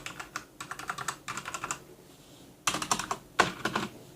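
Typing on a Motospeed CK104 mechanical keyboard with red linear switches: quick runs of keystrokes, a pause of about a second partway through, then two more short runs. The switches make far less noise than clicky blue switches.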